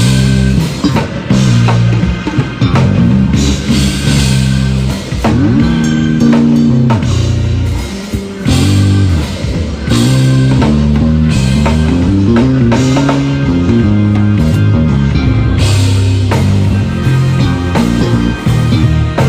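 Electric bass guitar playing a moving bass line with sliding notes, over a full drum kit, as a band plays through a song.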